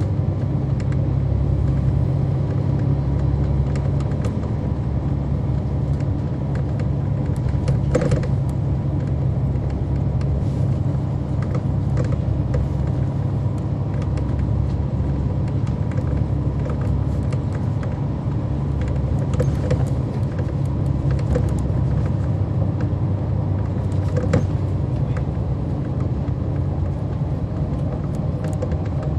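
A 2011 NABI 40-SFW transit bus with a Cummins ISL9 diesel engine and ZF Ecolife six-speed automatic transmission, running with a steady low rumble. Scattered sharp clicks and rattles come through over it.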